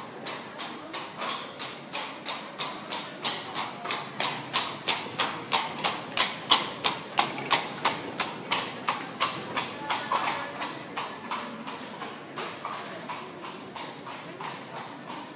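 Horse's hoofbeats at a steady, even pace, about three strikes a second, growing louder toward the middle and then fading away.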